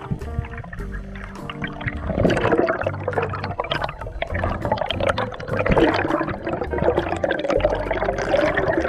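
Underwater bubbling and gurgling, loud from about two seconds in: air bubbles stream up from a freediver rising with his speared fish, heard through an underwater camera. Background music with steady held notes runs underneath.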